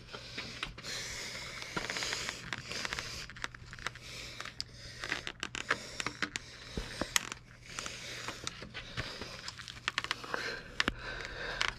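Scott Diamond rubber hand grip being twisted and worked onto a mini bike's throttle tube, slick with Windex: an irregular run of scraping, rubbing and small clicks of rubber and plastic under the hands.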